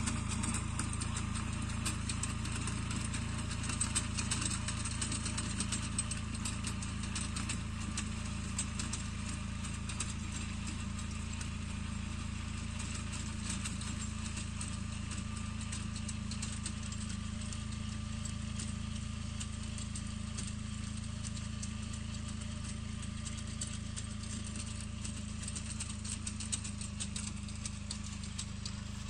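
Captain 280 4WD mini tractor's engine running steadily under load as it pulls a 30-blade rotavator through the soil, with scattered light ticks. It grows gradually fainter as the tractor moves away.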